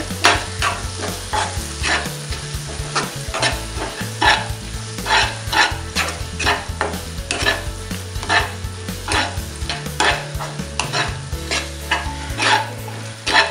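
Spatula stirring and scraping a thick onion-tomato masala round a non-stick pan, about two strokes a second, with the frying masala sizzling underneath.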